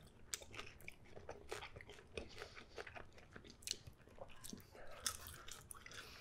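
Close-up chewing and biting of a slice of alfredo pizza with a golden-brown crust: soft mouth sounds broken by many small, sharp crunches.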